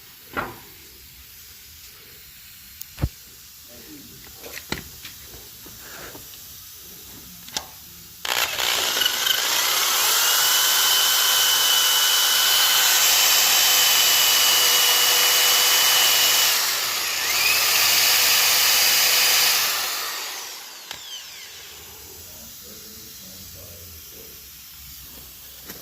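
A few light knocks and clicks, then a power drill with a 5/16 drill bit spins up about a third of the way in and drills out a factory ball-joint rivet with a steady whine. It briefly slows and picks up again near the middle, then winds down about three quarters of the way through.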